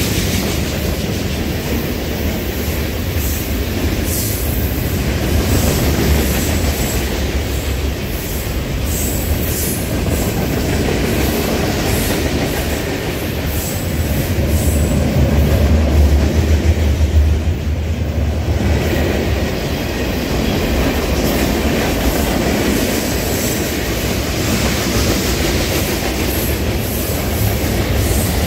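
Freight cars of a long mixed freight train rolling past: a steady low rumble of steel wheels on rail with clicking over rail joints, swelling louder for a few seconds about halfway through.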